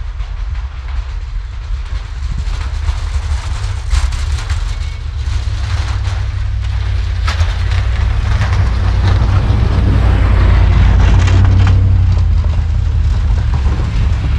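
Snowplow truck approaching and passing close, its engine a deep rumble that grows louder as it nears. From about four seconds in, its blade pushing and throwing snow adds a rising crunching, hissing spray that is loudest near the close pass.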